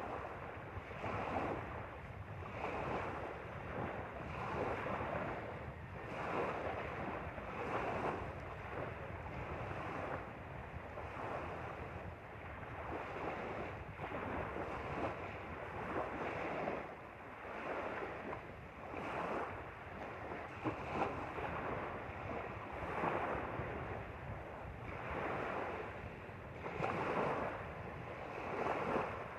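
Small lake waves lapping and splashing at the shore, one surge every second or two, with wind rumbling on the microphone.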